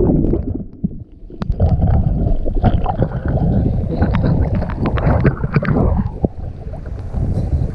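Breaking surf churning and splashing over an action camera's waterproof housing. The sound goes muffled and drops for a moment as the camera goes under about a second in, then turns to crackling bubbles and splashes back at the surface, over a steady low rumble of water against the housing.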